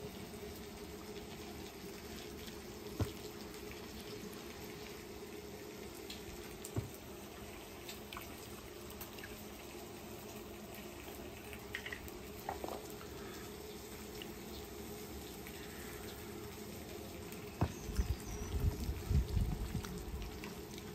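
Faint steady hum with a few soft clicks. In the last few seconds come irregular soft low thumps and squishing as a thick shredded-chicken and cream-cheese mixture is worked with a silicone spatula in a stainless steel bowl.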